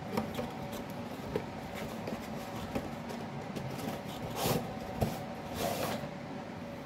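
Hands handling plastic toy parts off camera: scattered small clicks, a sharper knock about five seconds in, and two short rustles, one around the middle and one near the end, over a faint steady room hum.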